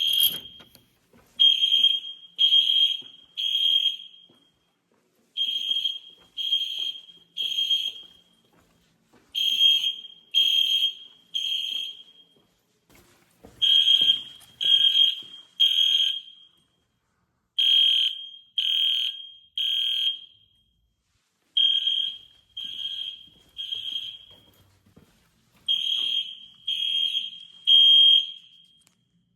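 EST Genesis fire alarm horns sounding the Code 3 (temporal-three) evacuation pattern. Three short, high-pitched blasts, a pause, then the group repeats about every four seconds.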